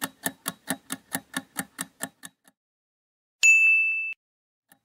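Countdown-timer sound effect ticking quickly, about five ticks a second, fading out after a couple of seconds. Then a single bright high ding, held for under a second and cut off sharply, marking the answer reveal.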